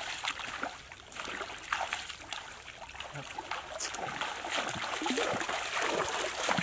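Water trickling and splashing, with many small irregular splashes over a steady running-water hiss.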